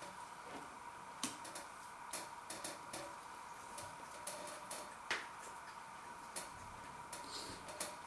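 Mouth sounds of a person chewing a bite of a breadcrumb-coated chicken breast burger: faint, irregular clicks and smacks, the sharpest about five seconds in.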